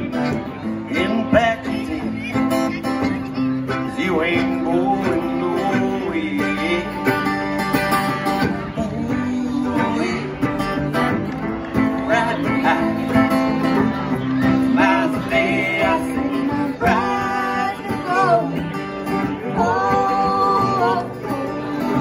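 Live country-style band playing: strummed acoustic guitar over a steady bass line and drums, with fiddle and guitar melody lines sliding between notes.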